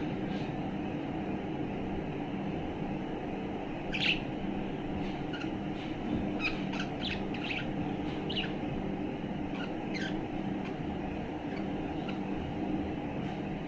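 Budgerigar chirping in short, scattered notes, with a louder chirp about four seconds in and a run of quick chirps a few seconds later. A steady low hum runs underneath.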